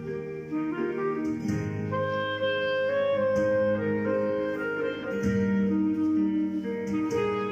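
Background music: an instrumental melody of held notes over accompaniment.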